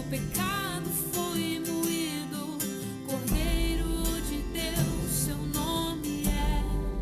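A woman singing a slow Portuguese-language gospel song with vibrato, accompanied by acoustic guitar.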